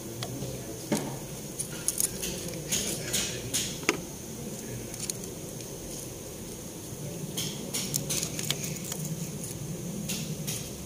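Scattered light metallic clinks and clicks of hand tools and parts being handled during engine installation work, with a quieter stretch in the middle.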